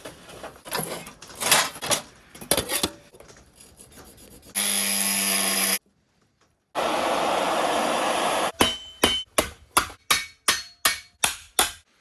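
Workshop tool sounds: scraping and knocking, then a loud steady noise that stops abruptly twice. Near the end comes a quick run of about a dozen sharp hammer blows on steel, roughly three a second, each ringing briefly.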